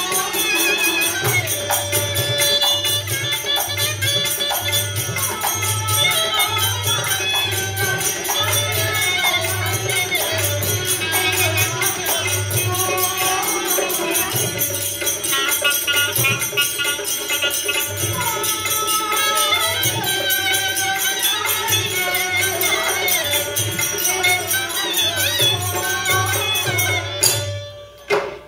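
Live Rajasthani folk music for the Terah Taali dance: a singer over a steady drum beat, with the rapid jingling of the manjira cymbals that the seated dancers strike against those tied to their legs and arms. The music dips out briefly near the end.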